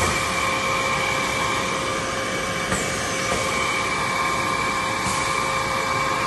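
Cold saw running under power with no cut being made: a steady motor whine of a few fixed pitches over a constant hiss.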